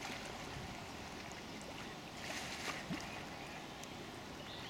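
Kayak paddles stroking through calm canal water over a steady background wash, with a louder splash from a paddle stroke a little over two seconds in.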